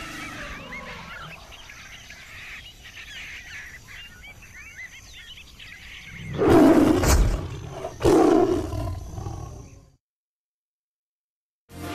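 Faint bird chirps, then two loud lion roars about six and a half and eight seconds in, each about a second and a half long; the sound then cuts off abruptly.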